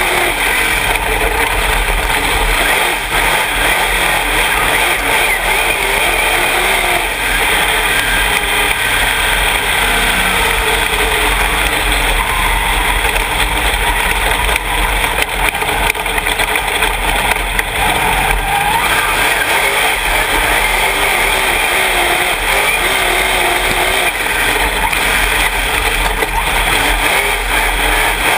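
Dirt late model race car's V8 engine heard from inside the cockpit, running loud without a break, its pitch rising and falling as the throttle is worked.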